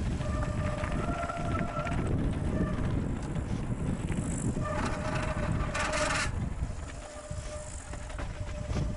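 Mountain bike rolling downhill on a gravel and dirt trail: constant wind buffeting on the camera microphone and tyre rumble, with a buzzing tone that comes and goes, as from the rear hub freewheel while coasting. A brief harsh hiss comes about five seconds in.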